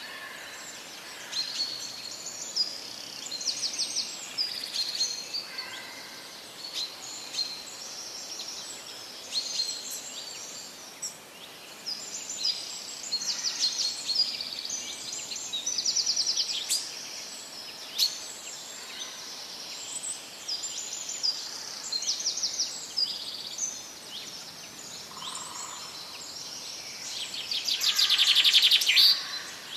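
Several forest songbirds calling and singing, overlapping chirps, whistles and trills, with a louder, rapid trill near the end.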